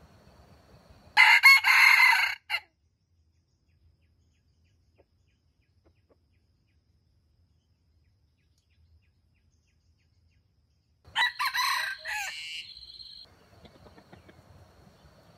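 Red junglefowl rooster crowing twice: a short crow about a second in and another about ten seconds later, each cut off quickly.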